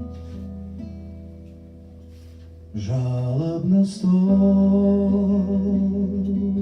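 Acoustic guitar accompaniment ringing and slowly fading, then about three seconds in a singing voice enters over the guitar, sliding into the first phrase and holding a long note.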